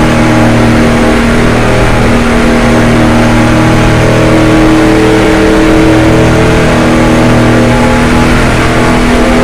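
NASCAR stock car's V8 engine running hard at a steady high pitch at racing speed, heard from inside the car, with only slight rises and dips in pitch.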